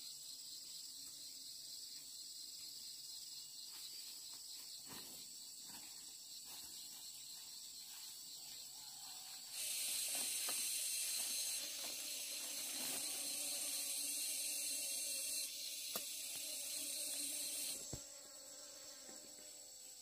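Insects calling in a steady high-pitched chorus. A louder, hissing insect call starts suddenly about halfway through and cuts off shortly before the end. A few light clicks come in the first half.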